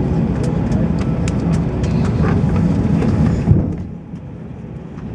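Steady low rumble of noise inside an Airbus A320 cabin, with scattered sharp clicks. About three and a half seconds in it drops abruptly to a quieter, duller rumble.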